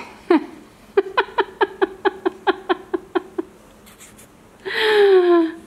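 A woman laughing: an even run of about a dozen short 'ha's, about five a second, starting about a second in. Near the end, one long voiced call sliding down in pitch.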